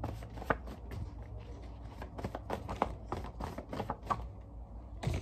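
Sheets of paper being leafed through and rustled by hand: a run of quick, irregular rustles and taps that thins out after about four seconds, over a steady low hum.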